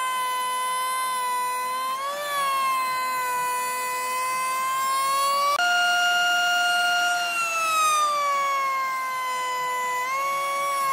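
Table-mounted wood router running at high speed, a steady high whine with overtones. Its pitch jumps up about halfway through, then sags slowly over a couple of seconds while the bit cuts the board, and rises again briefly near the end.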